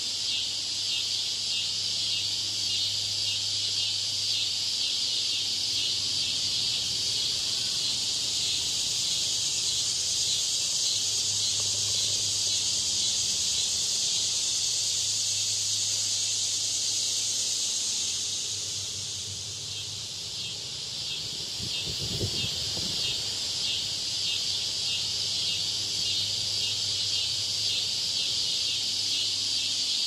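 Steady, dense high-pitched insect chorus with a fast pulsing texture, easing off briefly about two-thirds of the way through, with a short low rumble.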